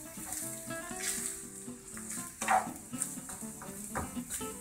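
Flaked cooked hake and monkfish sizzling in oil in a non-stick frying pan while a spatula stirs and scrapes it around, with one louder clack of the spatula about halfway through.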